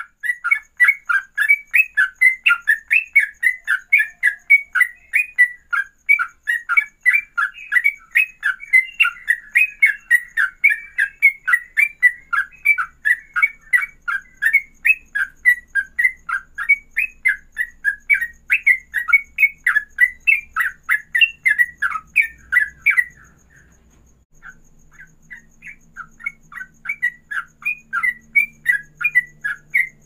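Yellow-vented bulbul (trucukan) singing in the fast 'ropelan' style: a long unbroken run of quick repeated notes, about three a second. The song breaks off for a second or two about three quarters of the way through, then starts again.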